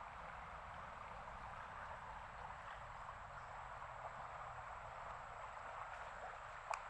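Faint, steady rushing of running floodwater, with one small click near the end.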